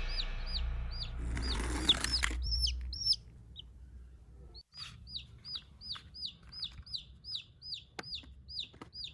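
Bird chirping: a run of short, high chirps, each dropping in pitch, repeating about three times a second, with a brief rush of noise about two seconds in.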